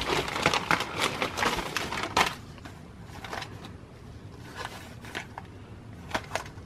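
Plastic poly mailer bag crinkling and rustling as an item is pulled out of it, for about two seconds. Then quieter handling of a small cardboard box, with a few light taps and clicks.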